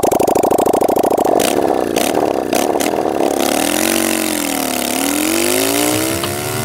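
V-twin motorcycle engine running with a fast, even beat just after starting. About three and a half seconds in, it revs as the bike pulls away, and its pitch rises, dips and rises again.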